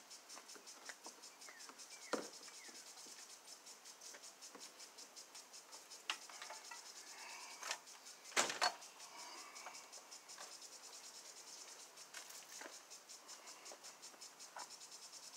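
Steady, rapid, high-pitched chirping of an insect in the background, with a few sharp clicks and knocks of something being handled; the loudest is a pair about eight and a half seconds in.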